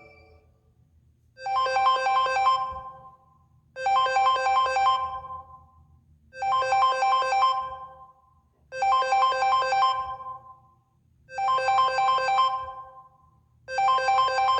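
Samsung Galaxy A40 ringtone: a short, bright electronic phrase of quick pitched notes, repeated six times at even spacing, about every two and a half seconds.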